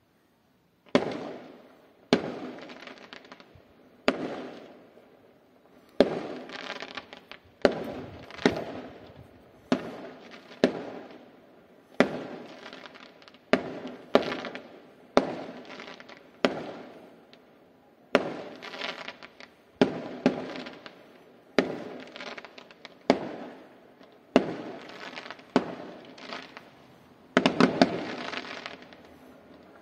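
Aerial fireworks shells bursting one after another, a sharp bang roughly every second or two, each followed by a fading tail. Near the end several bangs come in quick succession.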